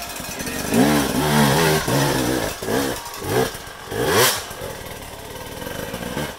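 Dirt bike engine revved in a run of short throttle blips, about five, each rising and falling in pitch, as the bike is worked up a rocky climb; it settles lower near the end.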